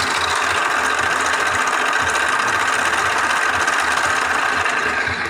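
Homemade mini lathe, powered by a second-hand sewing-machine motor, running steadily with a wooden dowel spinning in its three-jaw chuck: a loud, even whirring with a low hum underneath.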